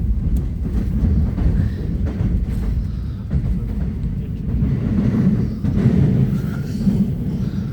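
Seoul Subway Line 7 train running, heard from inside the carriage: a steady low rumble of wheels on rail and running gear.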